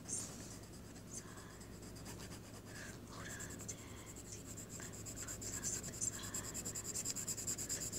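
Coloring strokes scratching rapidly back and forth on sketchbook paper. The strokes become denser and louder from about three seconds in.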